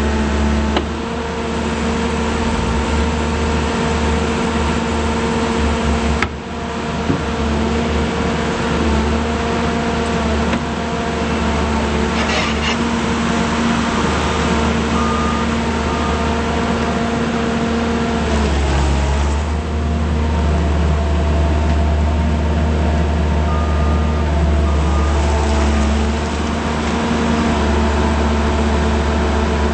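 Diesel engine of a Terex PT80 compact track loader running steadily, its pitch dipping briefly a little past halfway before settling again. A single sharp click about six seconds in.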